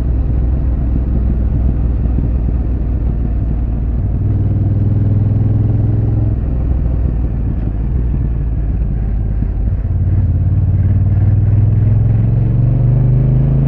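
Honda NT1100's 1084 cc parallel-twin engine, with its stock exhaust, running under way on a motorcycle. The note holds steady, dips about halfway through, then grows louder and rises in pitch toward the end as the bike accelerates.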